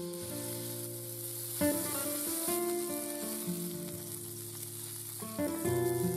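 Prawns sizzling in hot oil in a steel paella pan over a campfire: a steady frying hiss, under background music with held notes.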